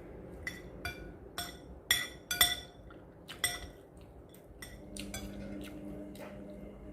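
Eating utensils clinking against a dish: about eight sharp, ringing clinks over the first five seconds, the loudest two about two seconds in. A steady low hum starts about five seconds in.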